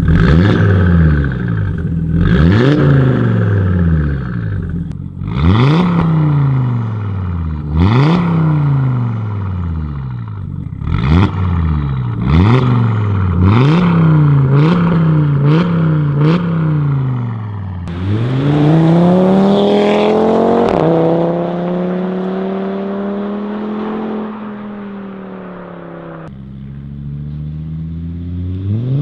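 Audi RS3's turbocharged five-cylinder engine through an aftermarket BULL-X EGO-X exhaust, revved in about ten quick blips that come faster toward the end. It then accelerates in one long rising pull, drops sharply in pitch, runs on steadily and starts rising again near the end.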